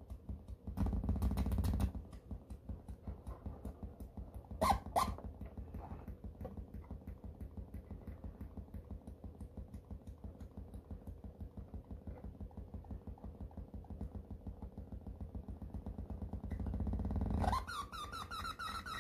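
Behringer MX602 mixer in no-input feedback: a low electronic rumble stuttering in fast pulses, changing as the knobs are turned. Harsh noise bursts come about a second in and near five seconds, and near the end a squealing feedback tone rises in pitch.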